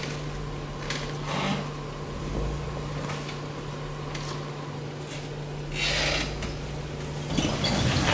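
Jeep Wrangler crawling over rocks: a steady low engine hum under several brief scraping and crunching noises, the loudest about six seconds in.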